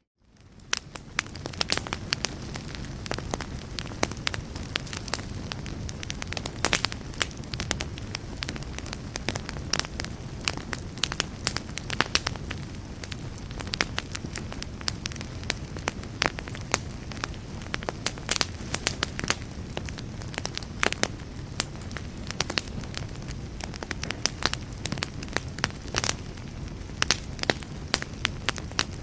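Wood fire burning in a fireplace: a steady low rumble of flames with frequent sharp crackles and pops. It fades in over the first second.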